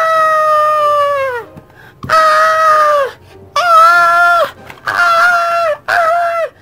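A voice screaming in high, drawn-out, play-acted screams. One long scream ends about a second and a half in, then four shorter screams follow, each falling in pitch as it breaks off.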